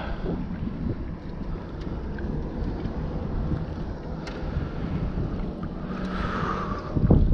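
Wind buffeting the microphone over open water, with a faint steady motor hum underneath. A loud knock near the end.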